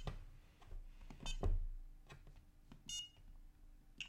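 ISDT T8 battery charger's key beeps as its control wheel is pressed to stop the charge: four short high beeps, the one about three seconds in the longest, with dull knocks of the presses.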